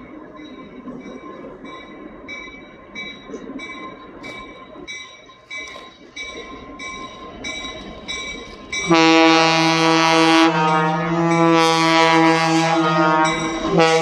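Train running with a low rumble, then about nine seconds in a locomotive horn starts suddenly in a long, loud blast that breaks off briefly near the end and sounds again.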